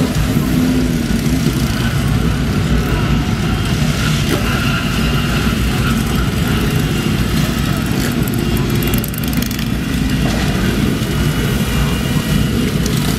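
Many motorcycle engines running together as a large column of bikes rides slowly past at low speed, a dense, steady wash of overlapping engine noise.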